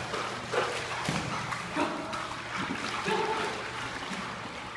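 Pool water splashing and sloshing as a dog bounds through the shallow end, with several sudden splashes.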